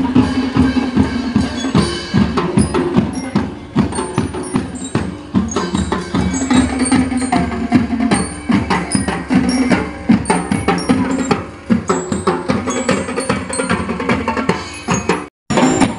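Drum band of snare drums and bass drums playing a fast, steady marching beat.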